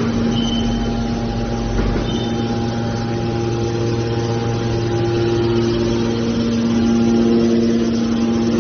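Hydraulic power unit of a scrap metal baler running with a steady machine hum; a second, higher steady tone joins about three seconds in.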